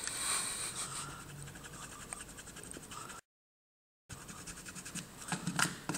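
Rubber eraser scrubbed quickly back and forth on the plastic back cover of a Nexus S phone, a dry scratchy rubbing, to rub off the printed logo. The sound cuts out completely for about a second a little past halfway, then the rubbing resumes.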